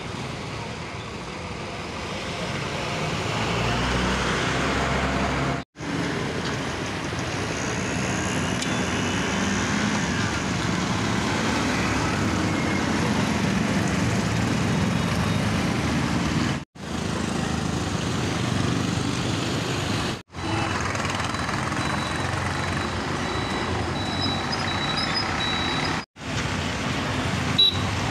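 Slow city street traffic on a wet road: auto-rickshaw, bus and car engines running, with tyre noise. The sound drops out abruptly four times, where the recording is cut.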